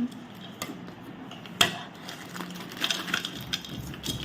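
Foil snack packet of Kurkure crinkling and crackling in irregular sharp clicks as it is worked open with the teeth, the loudest crackle about a second and a half in.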